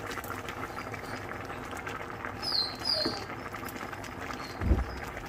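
Fish and vegetable broth simmering in a wok, a steady bubbling with fine crackle. Two short, high, falling chirps come about halfway through, and a dull low thump near the end.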